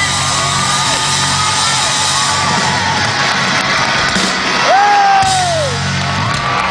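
Live rock band's music ringing out with sustained low notes while a concert crowd yells and whoops over it.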